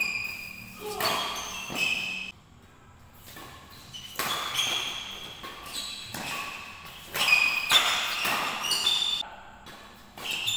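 Badminton doubles rally: sharp cracks of rackets hitting the shuttlecock at an uneven pace, with short high squeaks of court shoes on the floor, echoing in a large hall.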